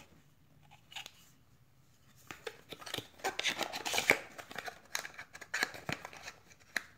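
Hands handling the packaging of a phone box: rustling with many sharp clicks and taps, starting about two seconds in after a quiet start.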